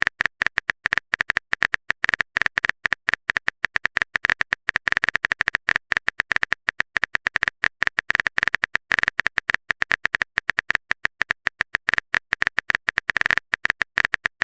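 Rapid, steady clicking of a typing sound effect, many keystroke clicks a second, like a message being typed on a keyboard.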